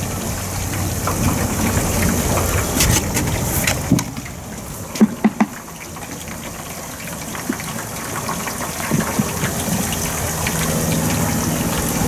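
Hot paraffin wax pouring and dripping off wooden hive boxes as they are lifted out of the heated wax vat, a steady gushing that eases off in the middle. A few sharp knocks about five seconds in.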